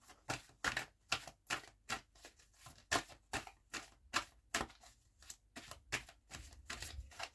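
A deck of tarot cards being shuffled by hand: a steady run of short card clicks, about two or three a second.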